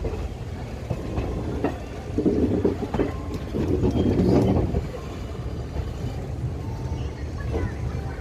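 Passenger train coach rolling slowly over points and crossings: a steady low rumble with irregular clacks as the wheels cross rail joints, as the train changes tracks on its approach into the station.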